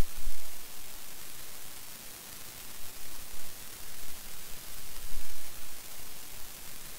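Steady, even background hiss with no distinct sound in it, broken by a few dull low bumps, one about a quarter second in and another around five seconds in.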